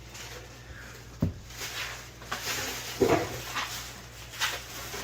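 Packing material being pulled and handled around a shipping box: scattered rustles and crinkles, with a dull knock about a second in.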